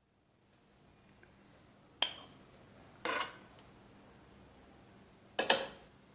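Steel spoon scraping and clinking against a non-stick pan and plate while scooping out macaroni: three short clatters, about two, three and five and a half seconds in, the last the loudest.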